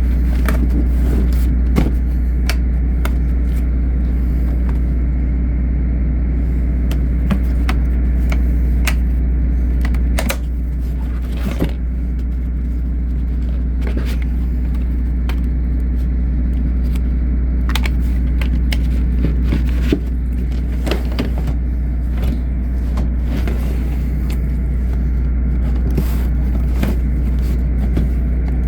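A steady low mechanical drone with no change in pitch, and over it scattered sharp clicks and knocks of tools and drawers being handled. There is a small dip in level about ten seconds in.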